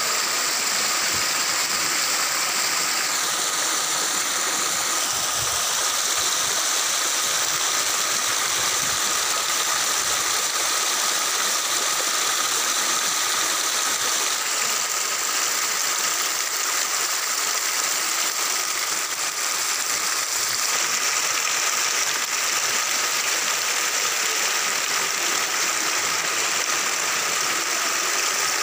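Water pouring over a small stone weir in a steady rush, with a steady high-pitched tone running through it.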